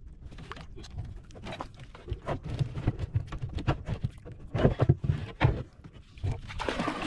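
Irregular knocks and thuds of gear and a paddle handled against a small wooden outrigger boat, over a steady low rumble, with a brief rushing noise near the end.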